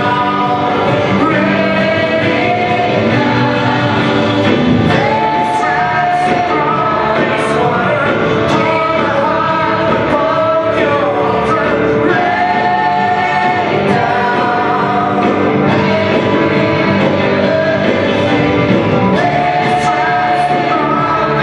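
Live worship band, electric guitars, keyboard and drums, with a group of singers performing a rock-style worship song, with cymbal hits through it.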